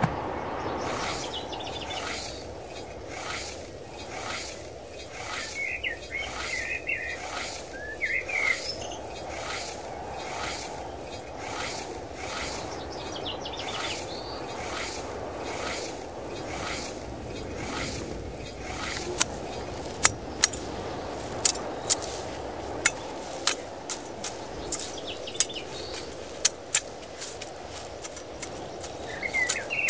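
Hoe chopping and scraping through weeds and soil in repeated strokes, turning to sharper, louder strikes on the ground in the last third, one or two a second. A bird chirps a few times several seconds in.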